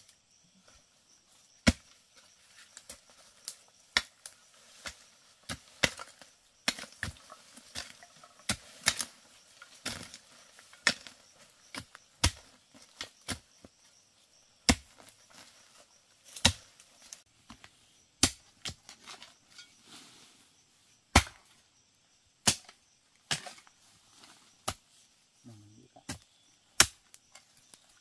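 Sharp, irregular knocks, about one or two a second, some much louder than others.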